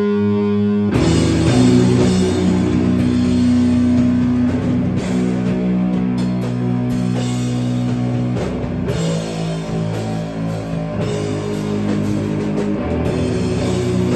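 Heavy rock band playing live: distorted guitars and bass hold long, low chords over a drum kit with crashing cymbals. A single held note sounds alone before the full band comes in about a second in.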